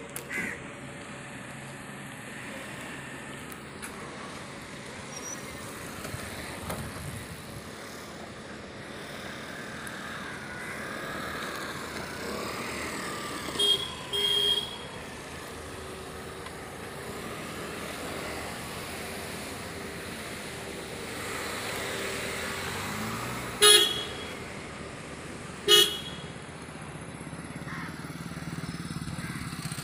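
Road traffic going by, with a vehicle horn tooting briefly four times: two short toots about halfway through, then two louder single toots a couple of seconds apart near the end.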